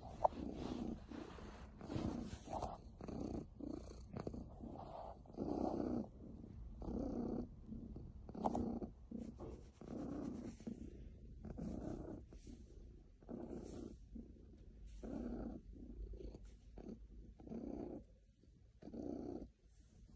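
Orange-and-white domestic cat purring while being stroked, a steady rumble swelling about once a second. A single sharp click sounds just after the start.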